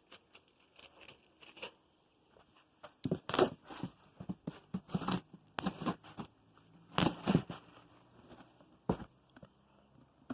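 A cardboard box being opened by hand: tearing and crinkling of the packaging in irregular bursts, loudest about three seconds in and again around five to seven seconds, with scattered small clicks between.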